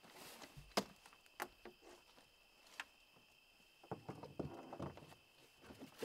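Gear being set down and shifted in a pickup truck bed: a few sharp knocks, then a short run of clattering about four seconds in. A steady high insect trill runs behind it.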